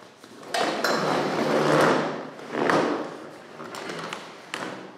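Several knocks and a scraping clatter of objects being handled and moved, with the loudest, longest noise in the first half.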